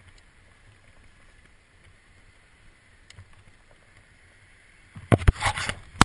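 Faint steady hiss with a few soft ticks; about five seconds in, a burst of loud close knocks and rubbing from a hand handling the body-mounted action camera.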